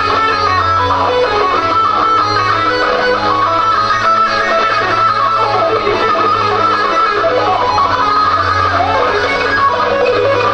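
Acoustic guitar played live, a continuous flow of quickly picked notes and chords, with a steady low note sustained underneath.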